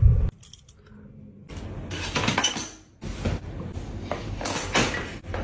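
A few short bursts of noise. Then, about three seconds in, a string of clicks and clinks from the metal lid of a stainless steel pedal bin as a cat climbs into it.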